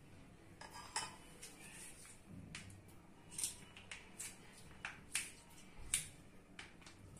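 Faint, scattered light clicks and taps of a steel spoon against a bowl of chopped salad as mayonnaise is squeezed onto it, about one or two a second.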